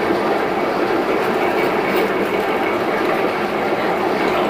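MDM meat machine running steadily with a loud, even mechanical grinding noise as it works meat into paste.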